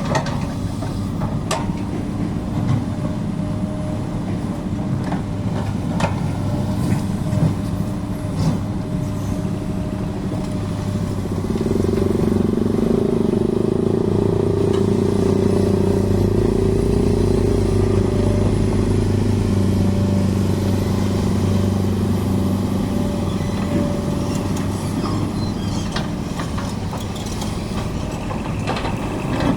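Volvo excavator's diesel engine running steadily. It gets louder and higher about twelve seconds in, as if under hydraulic load, and eases back a few seconds before the end. A few scattered knocks sound over it.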